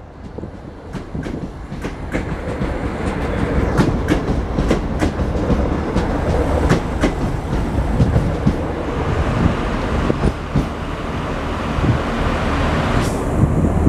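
DART electric commuter train pulling out and running past, its wheels clicking over rail joints and points over a steady rumble that grows louder over the first few seconds.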